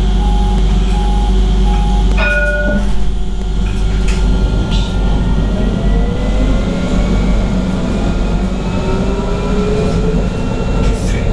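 Inside an Alstom Citadis 302 tram: a steady low rumble, with a short beeping signal in the first couple of seconds. From about halfway through, the traction motors' whine rises slowly in pitch as the tram gathers speed.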